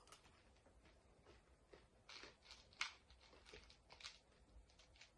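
Near silence with faint, scattered small clicks and ticks, a cluster of them about two to three seconds in: chopsticks tapping against M&M candies and their dish.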